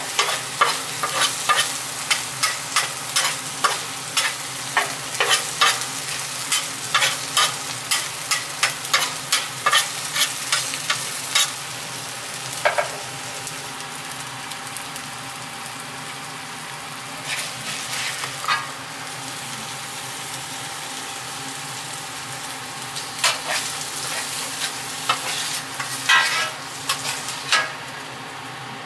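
Metal spatula scraping and chopping shaved beef, onions and green peppers on a flat-top griddle over a steady sizzle. The scrapes come about twice a second for the first dozen seconds, then only now and then.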